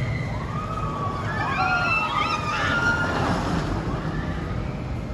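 Roller-coaster riders screaming: several high voices rising and falling together from about half a second in to three and a half seconds in, over a steady low rumble.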